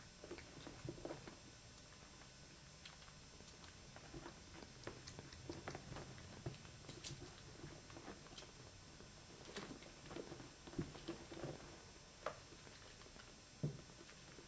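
Faint, irregular scuffling and soft patter of a mother rabbit and her five nursing kits shifting and pushing on a fabric blanket, with a few sharper soft knocks in the second half.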